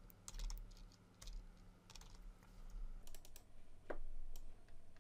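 Faint, irregular clicks and taps of a computer keyboard and mouse, over a low electrical hum.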